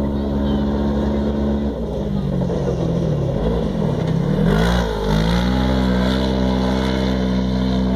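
Side-by-side UTV racing buggy's engine running hard as it comes along a dirt rally track and slides past close by. Its note falls and wavers, swoops down and back up as it passes about five seconds in, along with a hiss of spraying dirt, then holds steady as it pulls away.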